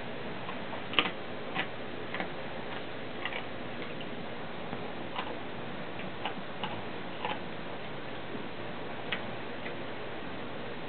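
Dog chewing, with irregular sharp crunches a second or so apart, the loudest about a second in.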